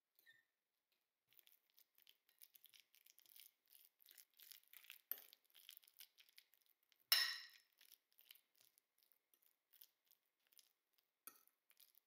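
Quiet close-up handling sounds: a run of short, soft rustles and scrapes, with one louder, sharper scrape about seven seconds in that fades quickly.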